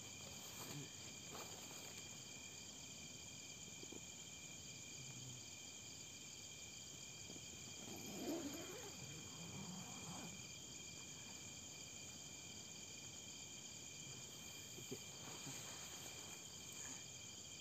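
Faint night chorus of crickets and other insects: several steady high-pitched trills sounding together without a break. A brief muffled sound about eight seconds in.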